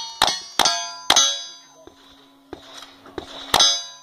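Rifle shots in quick succession, each followed by the ringing clang of struck steel targets, then a pause with faint clicks and one more shot and ring near the end. The uploader says the rifle is firing out of battery, going off before the action is fully locked.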